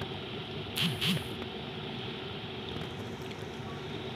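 Hauz glass electric kettle at a rolling boil: a steady boiling noise of the water, with two short louder sounds about a second in.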